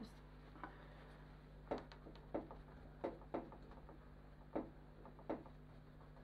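About seven light, sharp taps and clicks at uneven intervals as a small paint brush and hand tools knock against the painted sample board and easel while fine white veins are put in, over a steady low electrical hum.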